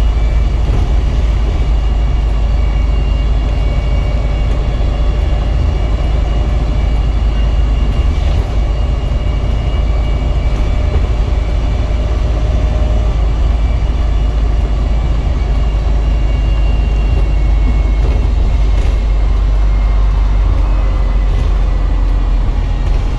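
Wright StreetDeck double-decker bus running, heard from inside: a steady heavy low rumble with faint high whirring tones above it.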